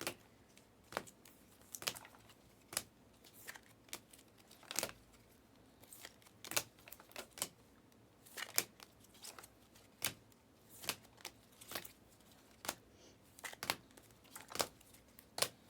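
Trading cards being handled: irregular short clicks and rustles, about one or two a second.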